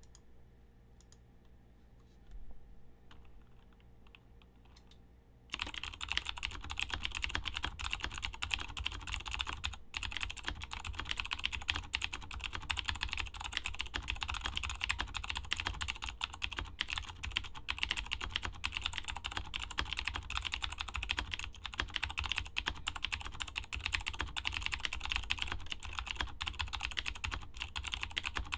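Typing on a KBTalking Race 75% keyboard with clicky Cherry MX White (Milk) switches. A few faint keystrokes at first, then about five seconds in, fast continuous typing starts, a dense run of clicks. The switches' factory lube makes the click inconsistent from key to key, as the owner notes.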